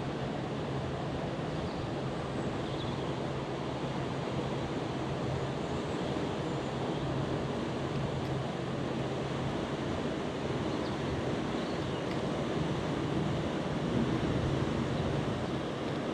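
Steady outdoor wind-and-water noise, wind on the microphone with water lapping, over a faint low steady hum.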